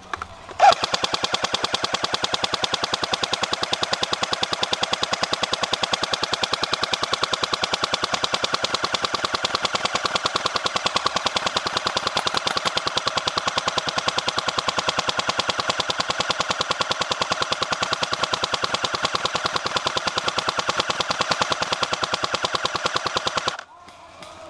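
Airsoft M60 support gun firing one long, unbroken full-auto burst of about 23 seconds, a rapid, even rattle of shots. It stops for about a second near the end, then starts firing again.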